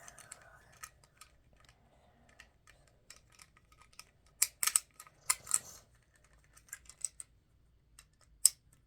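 Plastic Lego bricks clicking and clattering as they are handled and snapped together, with a loud cluster of clicks about halfway through and one sharp click near the end.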